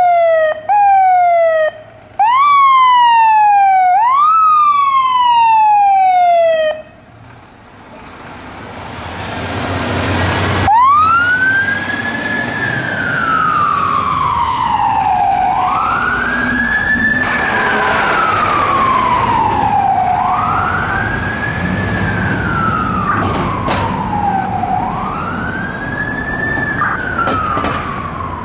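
Fire engine siren. First come a few short whoops, each jumping up and sliding down in pitch; they stop abruptly. After a short break the siren settles into a slow wail that rises and falls about every four seconds.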